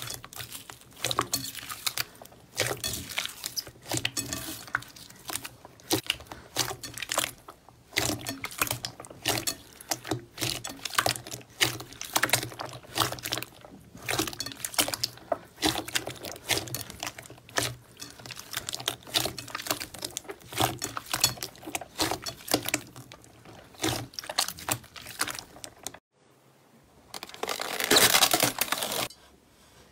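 Hands squeezing and kneading a metallic silver slime: wet squelching with many irregular sharp popping clicks. Near the end, after a brief drop-out, a louder burst of squelching as a clear blue slime is pressed.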